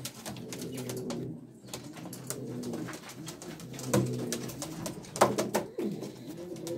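Pouter pigeons cooing in a small cage, with low, repeated coos from the crop-inflated birds. A few sharp taps come through, the loudest about five seconds in.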